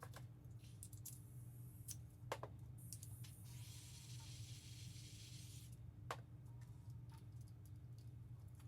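Scattered small clicks and taps of hand tools on the metal parts of a telescope mount, with a hiss lasting about three seconds in the middle, over a steady low hum.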